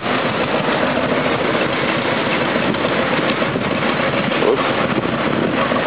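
An engine running steadily under a dense, even hiss.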